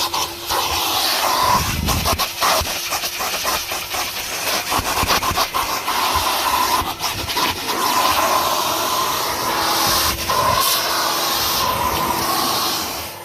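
Kerstar KV25-2 twin-motor commercial vacuum cleaner running, its nozzle sucking air with a loud hiss that rises and falls as it moves over the car. Scattered clicks and knocks sound as the nozzle meets surfaces and picks up debris.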